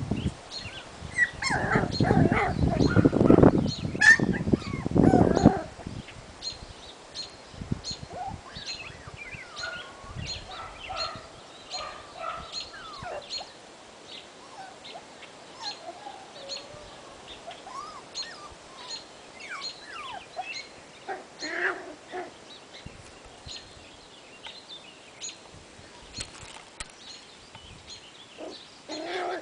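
Birds chirping: short high chirps about twice a second, with lower calls now and then. For the first few seconds a louder rough noise covers them.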